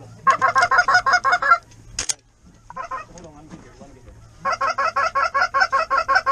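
Goose honking in two fast, even runs of about ten honks a second, a short run near the start and a longer one in the second half. A single sharp click falls between them.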